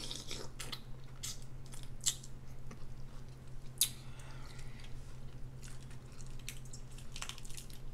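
Close-miked eating: chewing with wet mouth clicks and smacks, as of a prawn in sauce, over a steady low hum.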